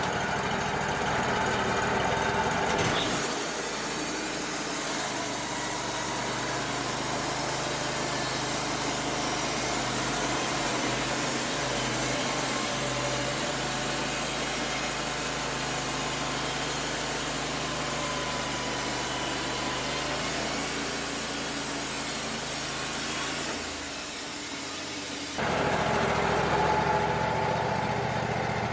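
Wood-Mizer LT35 band sawmill running, its engine steady. About three seconds in the sound changes abruptly to a denser, hissing mix that lasts until near the end, when the first engine sound returns.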